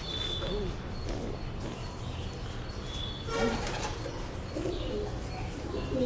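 Racing pigeons cooing in a loft, with wings flapping as a pigeon is taken by hand from its cage, and a few brief high chirps.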